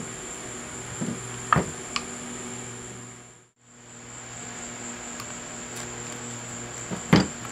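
A few sharp metal clinks and knocks of hand tools against lathe parts while a stubborn screw is worked loose. There are three light knocks in the first two seconds and a louder double knock near the end, over a steady background hum.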